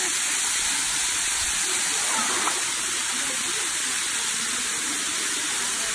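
Waterfall pouring down a rock ledge into a pool, a steady rushing hiss.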